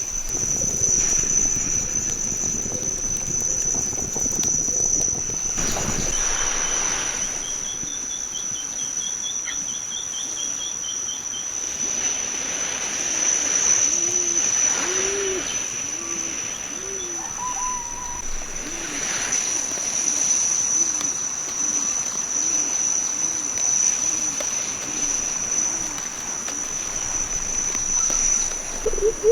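Outdoor country ambience: insects keep up a steady high-pitched drone, with a bird trilling briefly and a run of low, evenly repeated calls in the second half.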